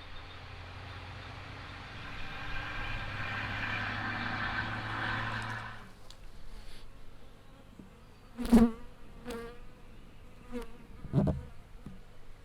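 Swarm of honey bees buzzing at a wild hive in a tree hollow: a steady hum that drops away about six seconds in. Two short, sharp sounds follow, the louder one about eight and a half seconds in and another near eleven seconds.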